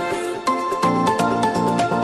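Upbeat electronic dance music: an instrumental with a steady pulsing beat and bright synth melody notes.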